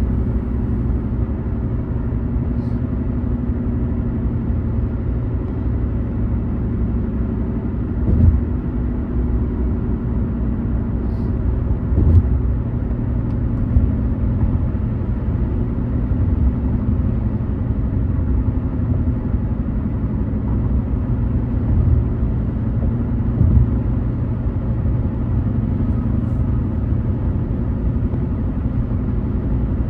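Steady in-car road noise while driving at highway speed: low engine and tyre rumble, with a few brief bumps along the way.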